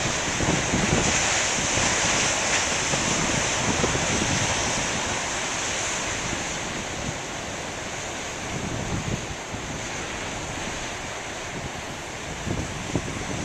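Surf breaking and washing on a beach, a steady rushing hiss that swells in the first few seconds and eases off, with wind buffeting the microphone.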